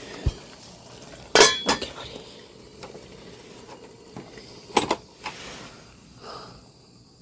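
Several sharp clinks and knocks of hard objects being handled: two close together about a second and a half in, another near five seconds, and softer taps between.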